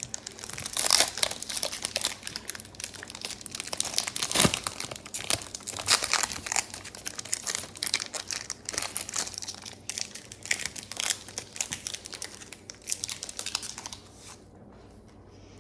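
Foil Pokémon card booster pack wrappers being torn open and crinkled. There is dense, irregular crackling, with one sharper crackle about four and a half seconds in, and it goes quieter near the end.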